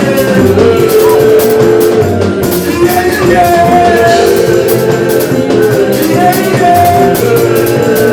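Loud live praise music from a band, with a drum kit keeping a steady beat under held sung notes.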